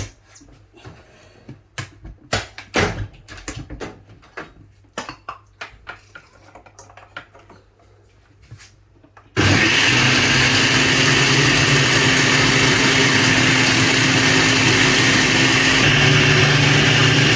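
A few light knocks and clicks, then about nine seconds in an electric blender is switched on and runs steadily and loudly, blending ginger, garlic, turmeric and other spices with water into a paste.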